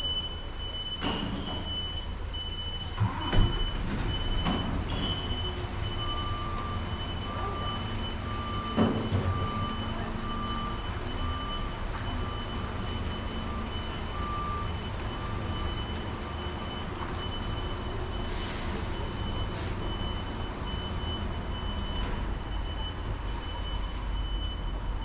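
Idling engines of parked emergency vehicles under a steady high tone, with a vehicle's reversing beeper sounding about twice a second from about six seconds in until about seventeen. A few knocks, the loudest about three seconds in.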